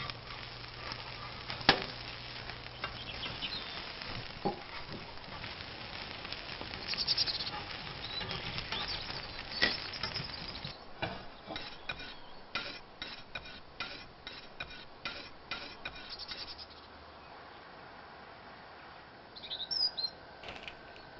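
Kitchen handling sounds: plates and cutlery clinking, with a sharp knock about two seconds in, then a run of quick, even scraping strokes, about two or three a second, for several seconds. A brief paper rustle near the end.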